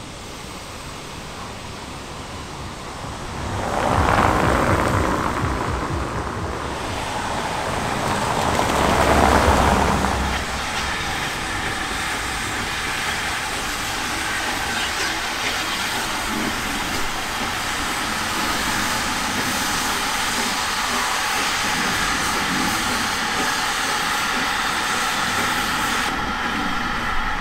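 Steam locomotives working under steam: two loud swells of steam and exhaust noise in the first ten seconds, then a steady hiss and rumble as a small tank engine runs along.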